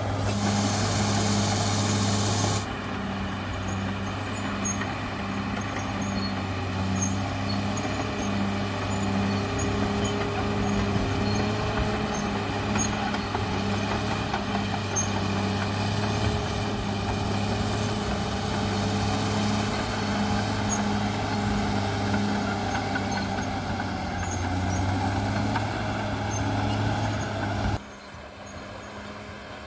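CAT D6R XL bulldozer's diesel engine running steadily under work: a deep drone with a slow, regular pulse. A hiss sits over it for the first couple of seconds, and near the end the drone drops to a quieter level.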